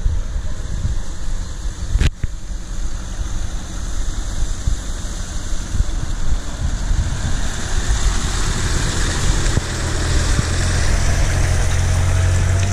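Mitsubishi L200 pickup's engine running as it wades through a river, growing louder over the last few seconds as it comes close. A faint rising whine comes in near the end.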